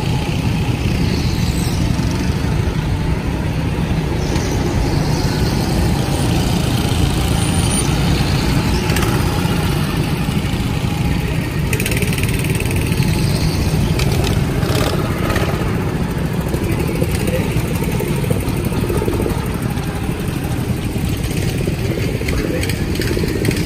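Go-kart engines running on the track, a steady drone.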